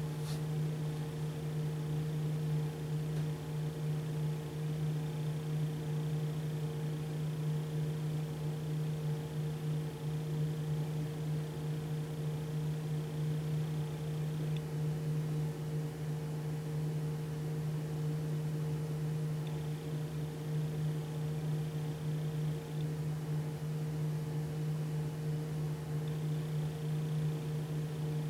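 Steady low machine hum over a light hiss, with a faint high whine that cuts out, returns briefly, and cuts in again near the end.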